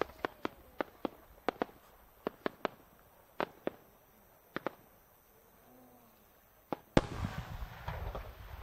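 A 10-gou aerial firework shell with rising effects: small side shells pop on the climb in an irregular string of about fifteen sharp cracks. About seven seconds in, the main shell bursts in one loud boom, followed by a long rolling rumble.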